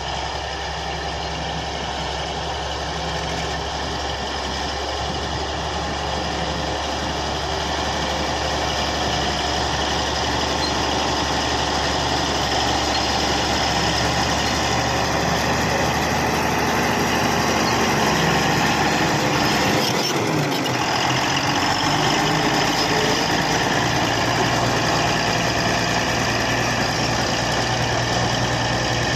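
Komatsu D155A bulldozer's diesel engine running steadily, growing gradually louder over the first two-thirds, with a shift in its low hum about two-thirds of the way through.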